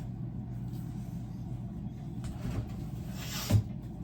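A steady low hum with a single sharp knock about three and a half seconds in.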